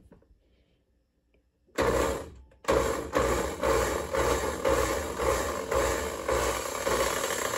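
Countertop blender pulsing cooked mushrooms and parsley, chopping them finely for a mushroom pâté. A short burst about two seconds in, then the motor runs on steadily with the contents churning against the blades.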